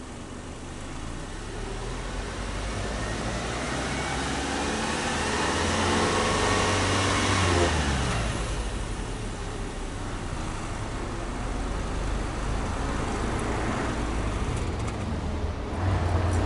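Subaru Legacy B4 2.5i's 2.5-litre flat-four boxer engine heard from behind at the exhaust tailpipe, revved slowly with the car standing still. The pitch and loudness climb steadily for about seven seconds, then drop back to a steady idle, which steps up a little near the end.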